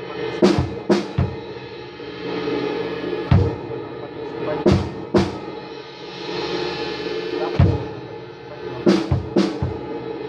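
Music with drums: a steady sustained backing, with pairs of sharp drum hits about half a second apart coming roughly every four seconds, and deep bass drum beats in between.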